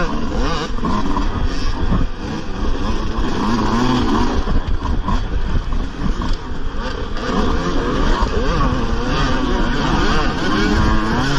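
Dirt bike engines revving hard as the bikes race in a close pack, the pitch rising and falling over and over with throttle and gear changes.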